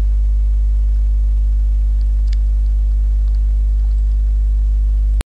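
Loud, steady electrical mains hum on the microphone line. A few faint clicks come about two to three seconds in, and the hum cuts off abruptly near the end.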